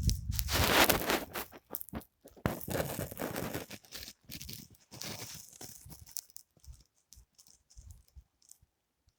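Footsteps crunching through deep fresh snow, heavy and dense at first, then thinning to faint scattered crunches after about six seconds.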